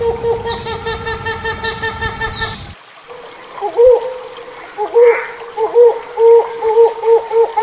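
Hornbill calling: a series of short, repeated hooting notes over a background of fast, high chirping. About three seconds in, the background cuts off abruptly and the hoots come back louder, several a second near the end.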